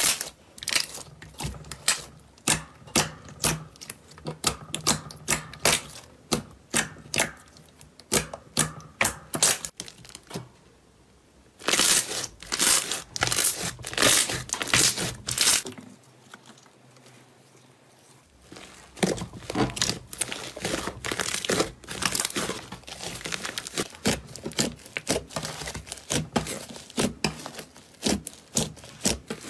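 Thick slime being squeezed, pulled and poked by hand, giving rapid sticky crackles and pops of trapped air, in busy runs broken by a couple of short pauses.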